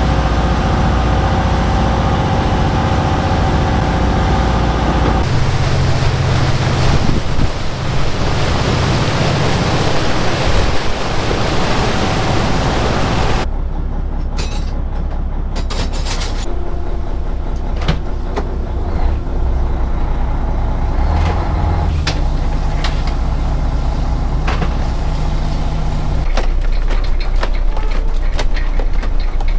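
Lobster boat's diesel engine running under way, with a rush of wind and water over it. About halfway through the rush drops away, and the engine carries on as a steadier, lower hum.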